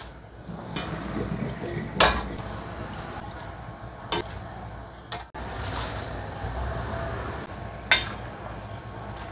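A metal spatula clinking against a stainless steel wok as vegetables are stirred while being blanched in hot water, with a low wash of moving water between the strikes. Three sharp clinks stand out, about two, four and eight seconds in.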